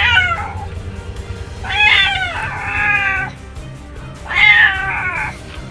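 Domestic cat meowing three times, the middle meow the longest, over background music.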